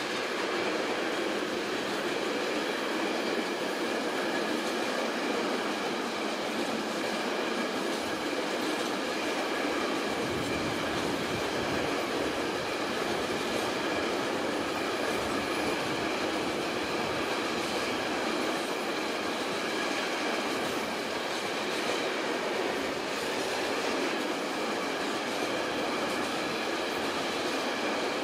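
A train running past at a steady level, its running noise overlaid by thin, steady high tones.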